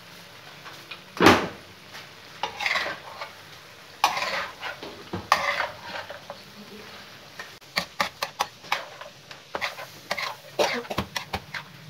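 Metal spatula scraping and clanking against a tawa as mutton chops are stirred and turned in sizzling oil. A loud knock comes about a second in, then a few scraping strokes, then a quick run of short sharp taps in the second half.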